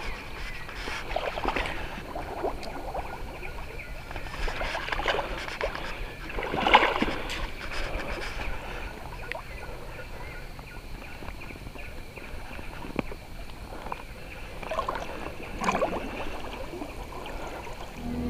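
Water sloshing and splashing close by, with irregular knocks and handling noise; one sharper splash or knock about a third of the way in.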